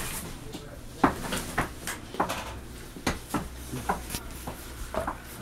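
Irregular knocks and taps on wood as puppies clamber against the wooden boards of their pen, about a dozen in all, the sharpest one about a second in.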